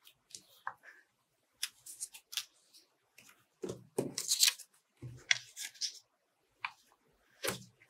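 Glue stick rubbed over paper and cut paper leaves handled and pressed onto the sheet: short scratchy rustles, with a few soft thumps as the hands press down.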